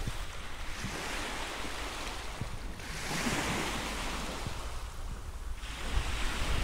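Sea waves washing onto the shore in a storm, swelling to a hissing surge about halfway through and again near the end, with wind rumbling on the microphone throughout.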